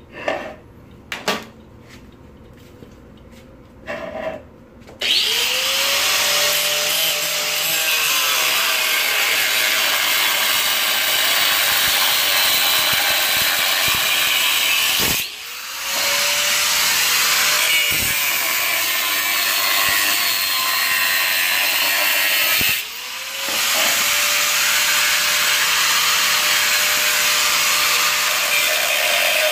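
Angle grinder with a cutting disc cutting notches into steel upper control arms. After a few knocks, the grinder spins up about five seconds in and cuts steadily. It dips twice when let off and comes back up to speed each time.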